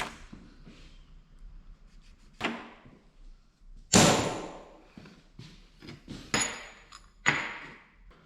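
Knocks and thumps from handling a length of four-wire hydraulic hose and metal parts, five in all, the loudest about four seconds in. The last two have a short metallic ring.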